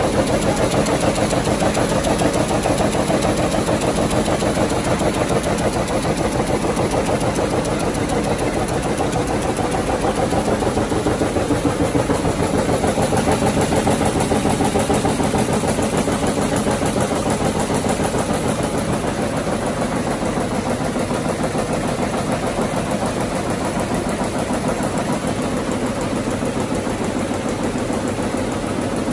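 Vamatex P1001 rapier loom running and weaving: a fast, steady mechanical clatter that keeps an even level.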